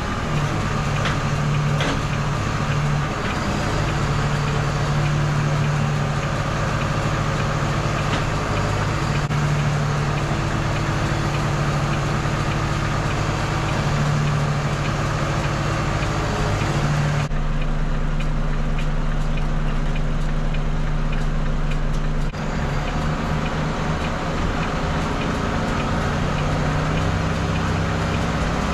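Volvo FE 320 lorry's diesel engine running steadily at a raised pace to drive the HIAB crane's hydraulics during a pallet lift, its tone shifting a little as the crane works. About seventeen seconds in the sound suddenly turns duller.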